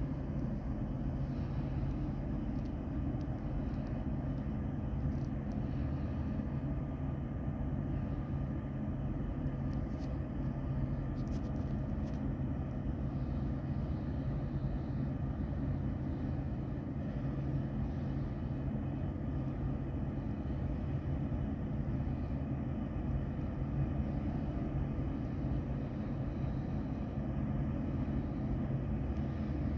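Steady low drone of a lake freighter's diesel engines, heard across harbour water, with a few fixed low tones and no change in level.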